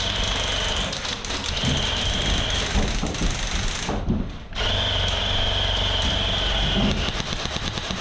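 Airsoft electric light machine gun firing full-auto in long bursts, its motor and gearbox whirring with rapid clicking as it cycles; a brief pause about four seconds in, then another long burst.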